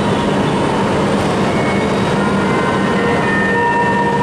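E5 series Shinkansen train set at the platform at departure: a loud, steady rush and hum from the train, with a faint whine coming in near the end.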